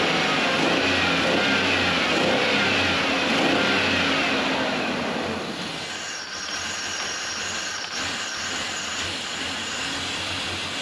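1996 Ford Ranger's 3.0 L V6 engine running with a misfire, revving higher at first, then dropping back to a quieter idle about halfway through.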